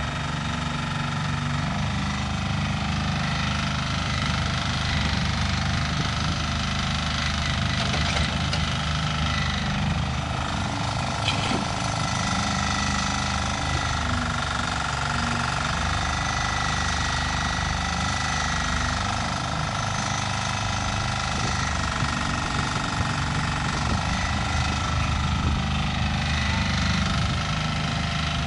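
Floating mini excavator's engine running steadily as the machine digs, with a steady higher whine over the low engine note. A couple of short knocks come partway through.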